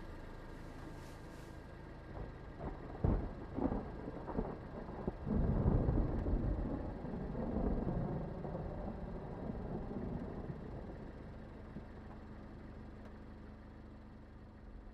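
Low rumble of a moving vehicle, with a few sharp knocks about three seconds in and a louder swell of rough noise around six seconds that slowly fades.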